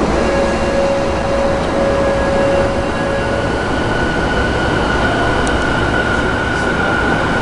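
JR E233 series electric train setting off, heard from inside the car: the traction motors whine over the running rumble. A lower whine gives way to a higher, steady one about three seconds in as the train gathers speed.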